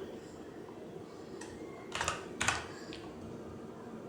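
A few computer keyboard clicks, spaced about half a second apart in the second half, over a faint steady hum.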